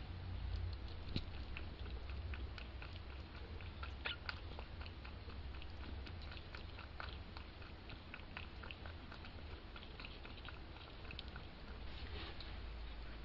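Two-week-old kittens scuffling and wrestling on a towel in a wooden box: many small scratches, rustles and clicks from their paws and claws, over a steady low hum.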